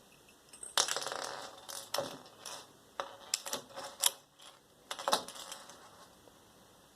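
Small metal rivets clinking and rattling as they are handled and sorted with a magnet: irregular clusters of sharp metallic clicks, with a loud single clink about four seconds in.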